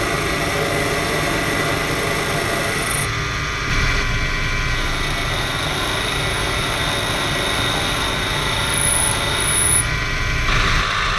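A Proxxon PD 250/e mini lathe running steadily, its motor and drive giving a continuous hum with several whining tones. The tone shifts slightly about three seconds in and again near the end.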